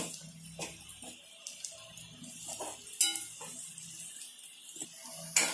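Steel spoon scraping and clinking against an aluminium kadhai while stirring onions and green chillies sautéing in oil, with a faint sizzle underneath. A few sharp clinks stand out, the loudest about three seconds in and just before the end.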